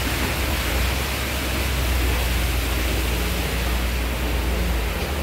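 Belanger and MacNeil car wash tunnel equipment running: a steady rushing hiss of spraying water over a low, even machine hum.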